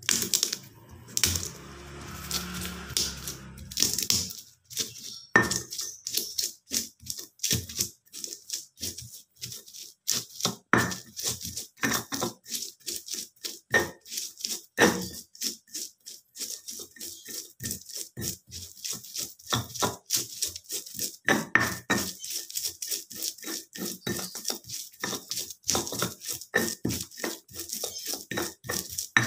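Stone mortar and pestle (cobek and ulekan) grinding candlenuts, chilli, garlic and shallots into a spice paste: quick repeated strokes of stone knocking and scraping on stone, about two to three a second.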